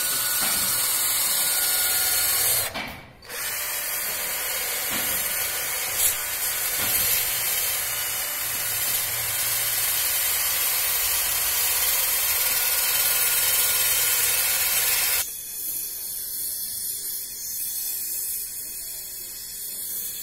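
Makita cordless drill spinning a wire wheel brush against the copper header of a boiler heat exchanger, scrubbing it clean before soldering. It stops briefly about three seconds in, then runs steadily until about two-thirds of the way through. After that comes a softer steady hiss from the soldering torch flame.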